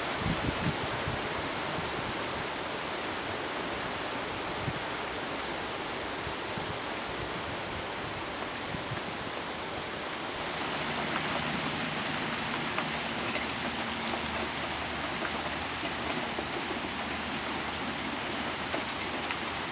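Steady rushing noise of outdoor storm weather, wind and rain from a tropical storm's remnants, turning louder and crisper about ten seconds in with fine pattering ticks.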